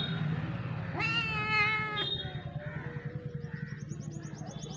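Wet kitten meowing once while being towel-dried: a single drawn-out meow lasting about a second, starting about a second in, over a low steady hum.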